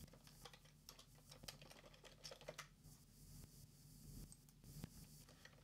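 Faint computer keyboard typing: scattered, irregular key clicks.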